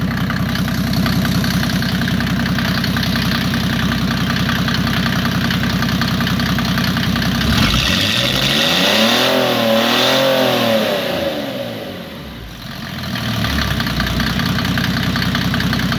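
Mercedes-Benz OM606 inline-six diesel idling with its valve cover off. About halfway through it is revved once: the pitch rises steeply, holds for a second or two, then falls back to a steady idle.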